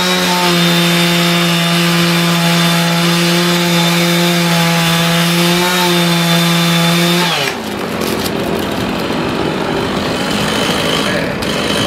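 Two-stroke chainsaw running at full throttle with a steady high pitch. About seven seconds in the throttle is released and the pitch falls away, leaving a rougher, noisier sound.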